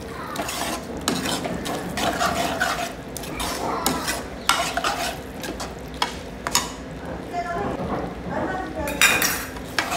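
A steel ladle stirs and scrapes a thick corn and capsicum masala in a stainless steel pot on the stove, with repeated metal clinks of ladle on pot and a louder metal clatter about nine seconds in.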